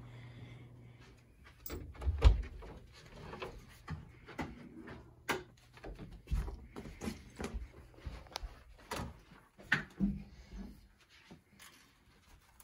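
Irregular knocks, bumps and clicks in a small room: a wooden door knocking loudly about two seconds in, then scattered clatters and bumps of things being handled.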